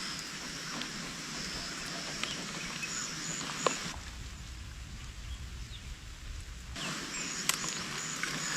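Outdoor ambience: a steady hiss with scattered light clicks and rustles, and two short runs of high, evenly spaced chirps, about three seconds in and again near the end. A low rumble replaces the hiss from about four to seven seconds in.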